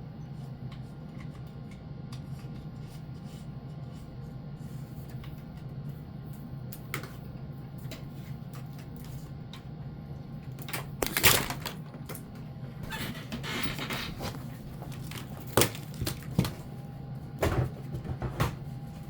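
Fire alarm wiring being handled and pulled through into the device's back box. Scattered clicks, knocks and rustling, loudest about eleven seconds in, over a steady low hum.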